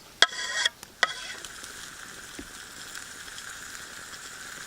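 Thick slices of Spam hitting a hot pan: a loud burst of sizzle as they go in, a sharp click just after a second in, then steady frying sizzle.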